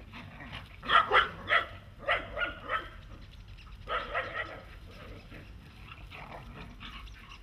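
Dogs barking in play: quick, short barks, a run of about six in the first three seconds and three more about four seconds in.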